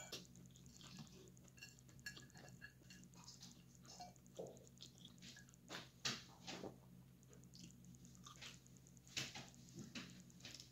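Quiet eating: soft chewing with scattered light clicks of a metal fork against a plate, over a faint steady hum.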